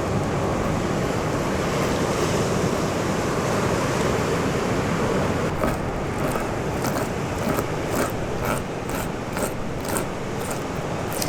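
Steady rush of surf and wind by the sea. From about halfway through, a quick run of sharp clicks, two or three a second, sounds over it.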